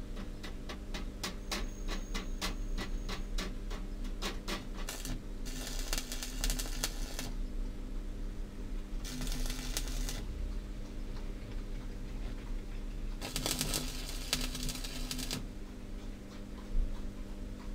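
Electric arc welding tack-welding the joints of wrought-iron scrolls: three bursts of crackling hiss, about two seconds, one second and two seconds long, over a steady electrical hum. A run of rapid clicks fills the first few seconds.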